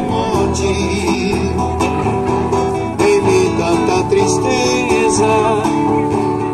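Amplified street-busker music: guitar playing a Brazilian song through a PA speaker, with a melody line over it.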